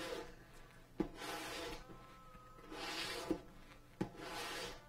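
Four rubbing strokes of a hand tool along a leather edge, about one a second, each beginning with a light click.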